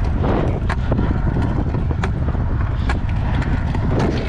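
Stunt scooter's 110 mm urethane wheels rolling over concrete: a steady rumble broken by a few sharp clacks from the scooter.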